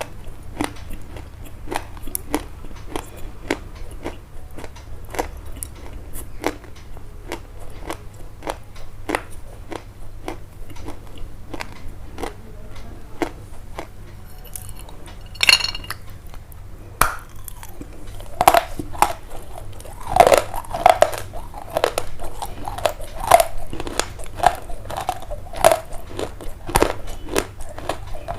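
Repeated crisp crunching, like bites into something crunchy, about twice a second, growing louder in the second half. A brief high squeak about halfway through.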